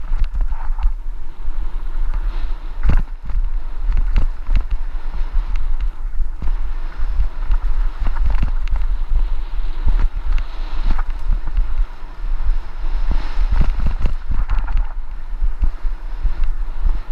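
Wind buffeting a helmet-mounted camera's microphone during a fast mountain-bike descent on a dirt trail, a constant low rumble. Frequent knocks and rattles come through from the bike jolting over the bumpy trail.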